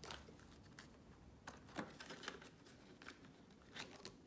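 Near silence in a small room, broken by a few faint, scattered rustles and light taps of paper being handled.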